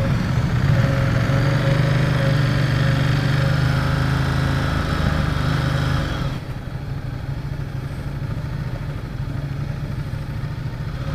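Ducati XDiavel's 1262 cc V-twin engine idling steadily, then, about six seconds in, dropping suddenly to a quieter, rougher engine sound as the bike pulls away slowly.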